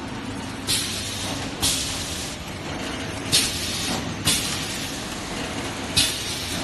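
Automatic L-bar sealer cycling on its pneumatics, each stroke releasing a sharp hiss of exhausted compressed air: five hisses, mostly in pairs about a second apart, over a steady machine hum.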